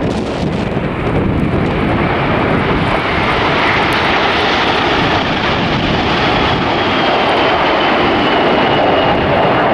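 Jet engines of a four-engined Boeing 747 and the Red Arrows' Hawk jets passing overhead in formation: a steady jet roar that builds a little in the first second, with a high whine falling slowly in pitch through the second half.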